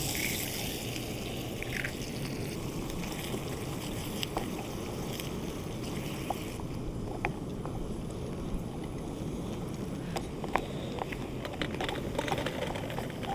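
Sausages, peppers and egg frying in a small pan on a portable gas-canister stove. A steady low rushing noise runs under scattered clicks and scrapes of a wooden spatula against the pan.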